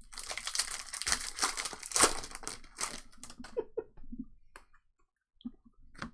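A trading-card pack wrapper being torn open and crinkled for about three seconds, followed by a few light clicks and taps as the cards are handled.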